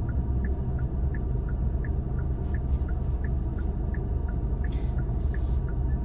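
A car's turn-signal indicator ticking in a steady, even tick-tock of two alternating clicks, over the low rumble of the car cabin while driving.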